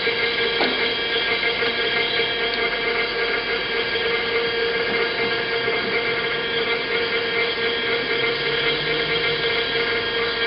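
Kent SGS-1224AHD automatic surface grinder running under power: a steady mechanical hum made of several held tones over a constant noise, with a brief falling tone about half a second in.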